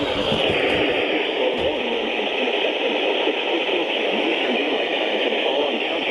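Steady radio static: an even hiss of noise from a receiver with no broadcast voice on it.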